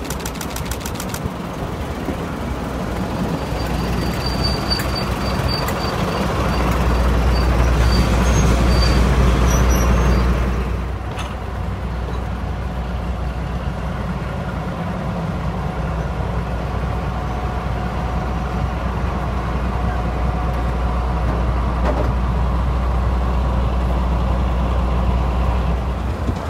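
Class 42 Warship diesel-hydraulic locomotive's engines running with a deep, steady rumble that builds to its loudest a few seconds in as it draws near. After a break the rumble carries on steadily.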